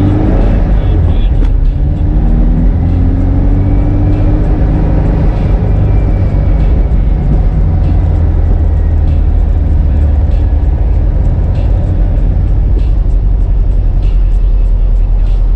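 The 1776cc air-cooled flat-four of a 1965 Volkswagen Beetle, fitted with velocity stacks and an A1 exhaust, pulling under way. Its pitch climbs over the first few seconds and then holds as a steady drone.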